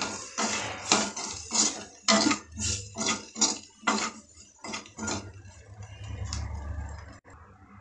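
Metal spoon scraping and stirring frying cauliflower pieces in a kadai: a quick run of short scraping strokes, about three a second, that stops about five seconds in.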